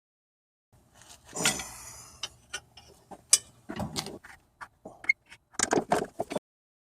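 Irregular metallic clicks and clanks of hand tools and hardware on a car's front strut assembly, with a few louder knocks in clusters near the middle and end.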